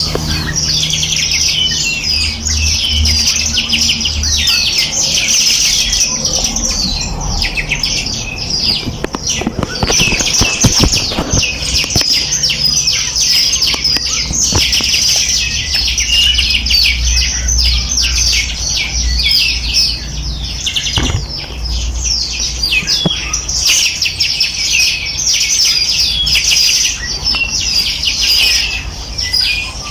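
Many small songbirds chirping and twittering at once: a dense, unbroken chorus of quick high chirps, over a low rumble.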